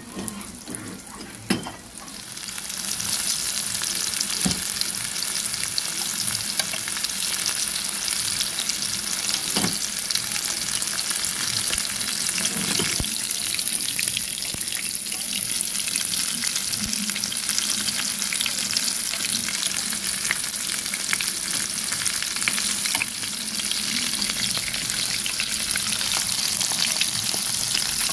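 Floured chicken breast pieces frying in hot oil in a pan: a loud, steady sizzle that rises sharply about two seconds in and then holds, with a few light clicks.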